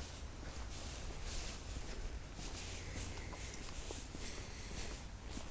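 Footsteps rustling through grass and undergrowth, a soft irregular brushing about every half-second, over a steady low rumble.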